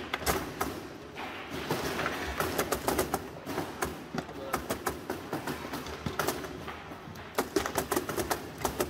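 Foosball table in play on a FIM Sport CR Factory table: quick, irregular clacks and knocks as the ball is struck, passed and stopped by the plastic men and the rods slide and bump. The clacks come in flurries, busiest about two seconds in and again near the end.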